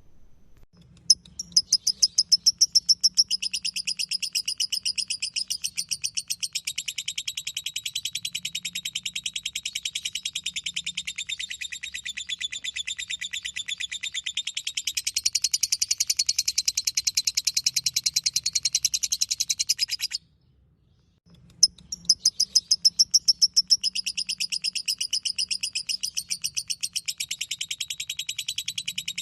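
Lovebird ngekek: one long, unbroken, rapid high-pitched chattering trill. It stops for about a second roughly two-thirds of the way through, then starts again.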